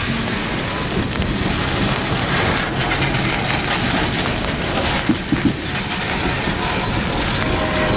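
Loaded coal cars of a freight train rolling past close by, with a steady rumble of steel wheels on the rails. A quick run of three sharp clacks comes about five seconds in.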